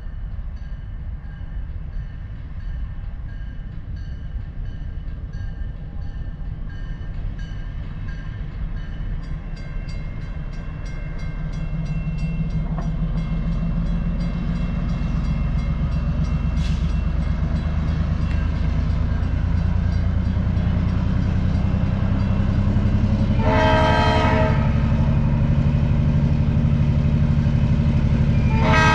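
Diesel locomotive approaching a grade crossing: its engine grows steadily louder from about ten seconds in, and its horn sounds two short blasts, the second about five seconds after the first, near the end. A crossing signal bell rings rapidly and evenly throughout as the gate arm comes down.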